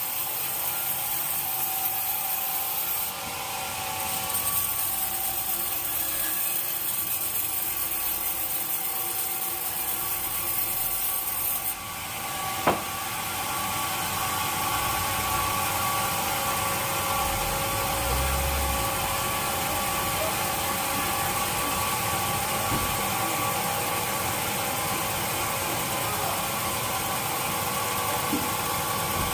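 Sawmill saw running through wood: a steady whining, hissing machine noise, with one sharp knock about halfway through.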